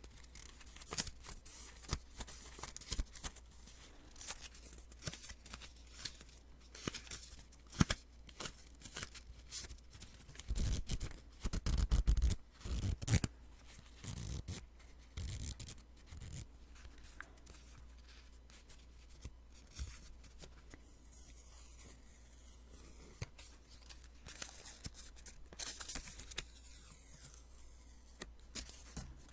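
Sticky notes being peeled off and handled, close up: crisp crackling paper and short sticky rips, with a louder run of peeling about halfway through.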